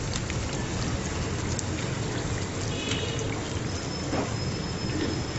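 Malpua fritters sizzling steadily as they deep-fry in hot ghee over a medium flame, with a few sharp ticks on top.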